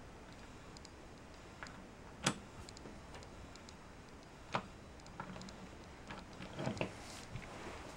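Wooden burr puzzle pieces clicking and knocking against each other as they are slid and fitted into place by hand. There are a few scattered sharp clicks, the loudest about two seconds in, then a quicker run of knocks near the end.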